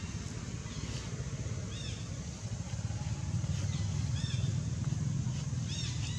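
Outdoor background: a steady low rumble, with short high chirping calls about three times.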